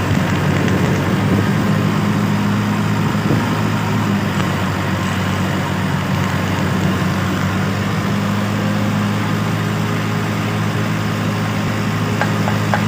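Stick (arc) welding: the welding machine's steady hum under the crackle and sizzle of the arc.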